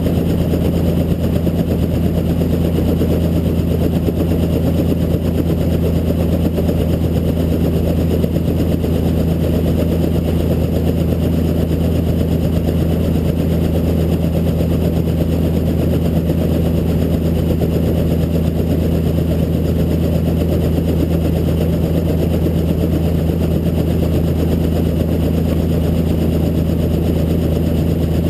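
Helicopter in flight, a steady low drone of rotor and engine that holds the same pitch and level throughout.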